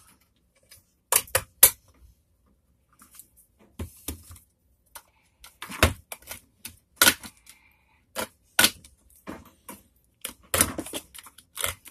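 Irregular sharp clicks, knocks and short scrapes of a hand tool cutting and prying at the glue that holds the cell pack inside a plastic e-bike battery case.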